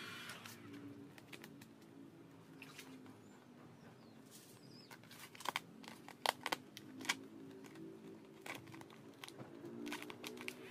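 A heat gun's blower cuts off just after the start. Then a sheet of vinyl wrap film crinkles and crackles as it is handled and stretched, with a cluster of sharper crackles in the middle.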